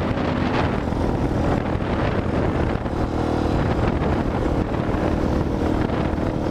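Motorcycle engine running steadily while riding, through a loud exhaust, with wind buffeting the microphone.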